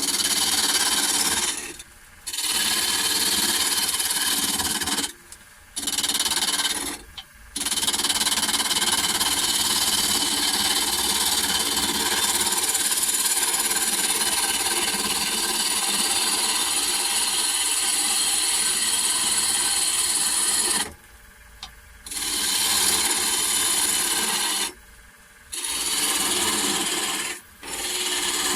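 Turning tool cutting a spinning piece of wood on a Holzmann D460FXL wood lathe: a steady scraping hiss, broken by about six short breaks where the tool leaves the wood.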